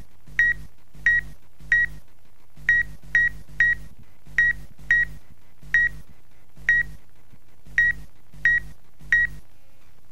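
A series of about thirteen short, high electronic beeps, all on the same pitch, spaced irregularly about half a second to a second apart, each with a low buzz beneath it.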